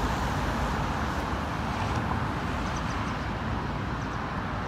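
Steady city traffic noise: a low, even rumble of road traffic.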